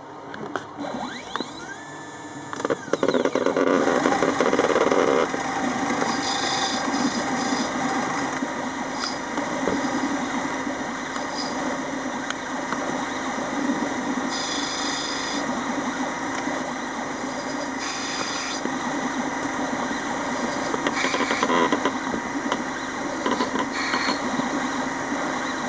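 CNC lathe running while machining a small screw from brass rod: a steady motor and spindle drone, louder for a couple of seconds near the start, with several short high-pitched bursts of cutting noise.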